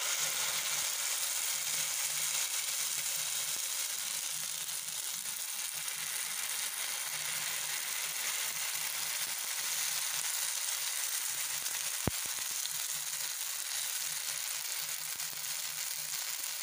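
Grated-potato adai batter sizzling steadily in hot oil in a non-stick pan, a dense high hiss. A single sharp click about twelve seconds in.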